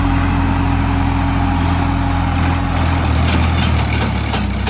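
Swaraj 963 FE tractor's diesel engine running steadily at moderate revs as the tractor rolls slowly forward. A few light clicks sound over it about three to four seconds in.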